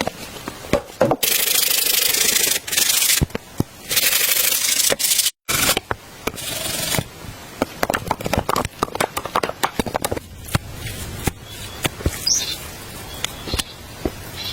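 Rough rubbing or scraping noise in several long strokes, followed by a run of rapid clicks and crackles that thins out to scattered ticks.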